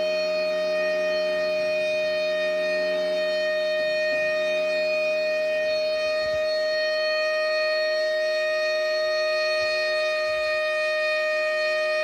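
Federal Signal Thunderbolt 1000 outdoor warning siren sounding a steady alert tone: one loud, even pitch with overtones, neither rising nor falling.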